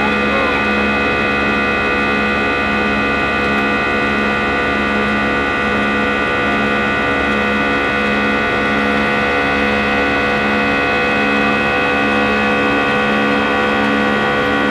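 Airbus A319 jet engines and airflow heard inside the cabin during the climb after takeoff: a loud, steady roar with several constant whining tones on top.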